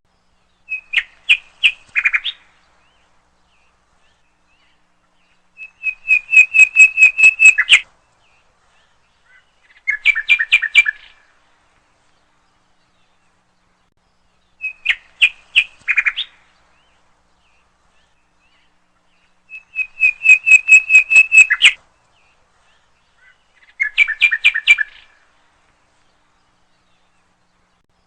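Bird calls in a repeating cycle of three short whistled phrases: a few quick notes, a fast trill, then a run of notes at two pitches. The cycle plays twice almost identically, with silent gaps between the phrases.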